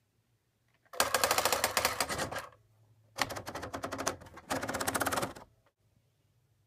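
Typewriter keys striking in three rapid runs of clicks, each lasting about a second, with short pauses between them.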